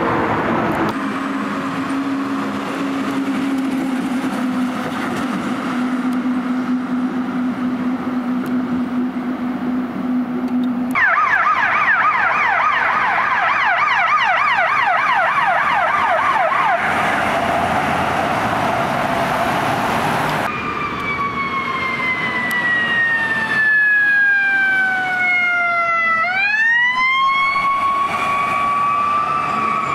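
Fire apparatus sirens on a fire engine and squad truck responding: a falling wail, then a long steady low tone, then a fast yelp sweeping up and down several times a second. Near the end a slow wail falls, swoops back up and holds high.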